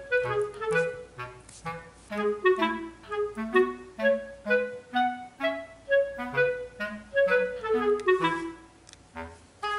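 Light background music: a melody of short, bouncy notes with falling runs over a bass line, pausing briefly near the end.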